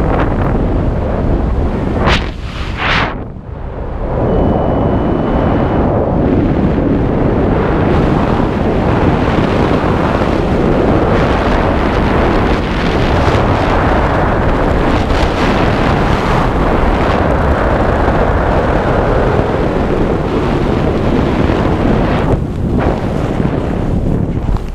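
Wind rushing over a skydiver's action-camera microphone during the descent under an open parachute canopy: a loud, steady rush that dips briefly a few seconds in and falls away near the end at touchdown.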